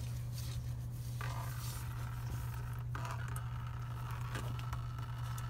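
Scraping and rustling of a hand tool turning the engine's spin-on oil filter loose, over a steady low hum.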